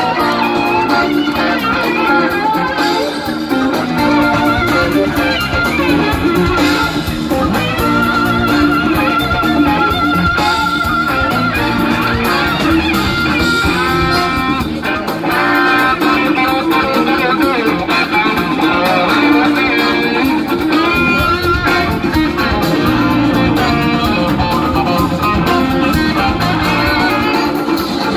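Live rock band playing: electric guitars carry sustained, bending lead lines over drums and keyboards, recorded from within the audience.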